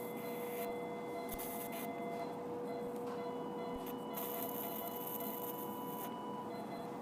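Electrosurgical unit sounding its steady activation tone while the electrosurgical pencil cuts around a small skin mass. A second, higher tone joins for a few seconds in the middle, and there are short bursts of hiss from the tip working the tissue.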